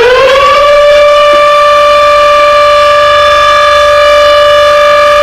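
Civil defense siren winding up, its pitch rising through about the first second, then holding one steady, loud tone.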